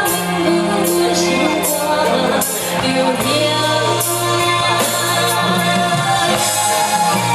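Live band playing a Hokkien pop ballad through a PA, with singing over the accompaniment.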